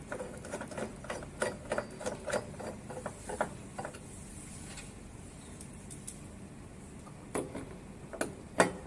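Light metallic clicks and taps of a screwdriver turning a screw that fixes a bent metal handle holder to a bracket on a machine's side panel. A quick run of clicks for the first few seconds, a lull, then a few louder clicks near the end.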